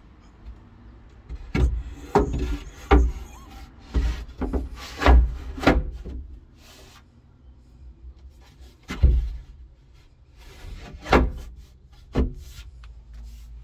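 Loose white-finished panels knocking and rubbing against the wooden frame as they are set into and lifted out of its grooves: a string of sharp knocks, about seven in the first six seconds, then three more spaced out, with some scraping between them.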